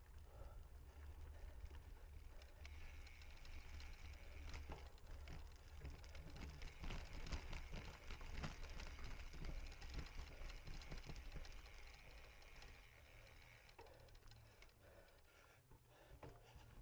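Cyclocross bike ridden over rough ground: scattered rattles and knocks with tyre noise over a steady low rumble, easing off toward the end.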